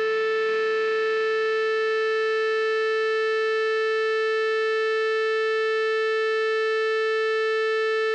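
Amplified electric guitar holding a single sustained note with many overtones, steady and unchanging, like a feedback drone.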